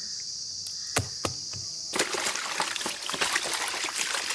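Crickets chirping steadily, with a couple of sharp knocks about a second in. About two seconds in, a wet, crackly trickling and splashing starts suddenly: water being added to the spice masala.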